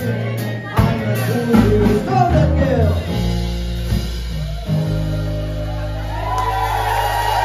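Live band music with several voices singing over acoustic and electric guitars and drums. The drum hits stop about three seconds in, and from about halfway the band holds a long chord under a sustained sung note, as at the close of a song.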